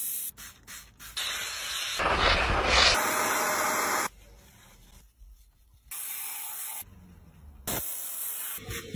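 Steam cleaner's nozzle hissing in several spurts as it is used on a car's interior upholstery and trim. The longest spurt lasts about three seconds.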